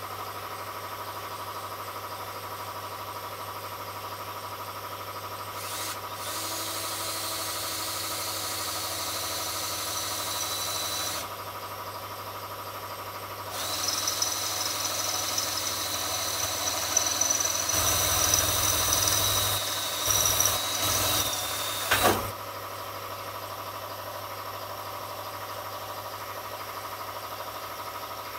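Power drill boring holes in sheet-metal repair pieces for plug welds: a short run about six seconds in, then a longer, louder run with the bit biting and chattering in the steel, ending abruptly after about 22 seconds. A steady shop hum sits underneath throughout.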